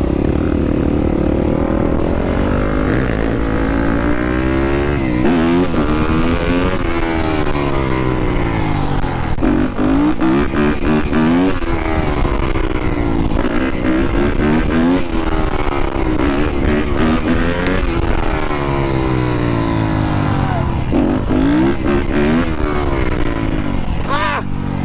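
Yamaha dirt bike engine being ridden hard, its revs rising and falling over and over, the pitch climbing and dropping back about every two seconds.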